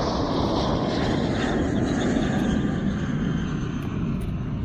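Steady low rumble of an aircraft passing overhead, easing slightly near the end.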